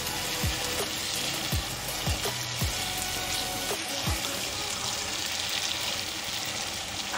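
Sweetened vermicelli sizzling in ghee and melting sugar in a non-stick frying pan while it is stirred with a spatula. Low thumps of a background beat come about every half second during the first four seconds.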